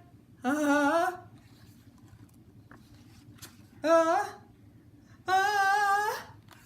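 A woman's voice acting out the wind-up to a sneeze: three drawn-out 'ah' sounds with pauses between, the last the longest, rising in pitch at its end.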